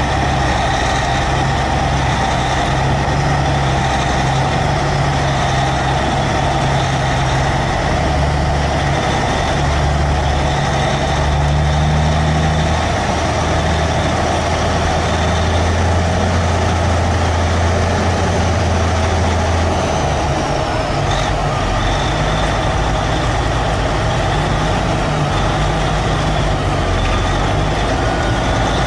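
Semi log truck's diesel engine pulling hard under load as it drags a loaded log trailer with its wheels stuck in a ditch. The engine runs steadily, and its note shifts about twenty seconds in.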